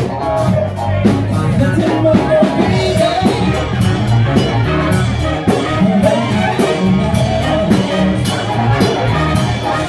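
Live cover band playing an upbeat dance song with guitar and a steady drum beat, heard through a phone's microphone.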